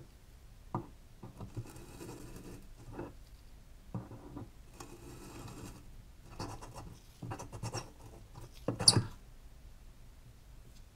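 Pliers with tape-wrapped jaws gripping and twisting a rusted brass wick-tube cap off a kerosene lamp: scattered small creaks, scrapes and clicks of corroded metal threads, with one louder sharp creak about nine seconds in.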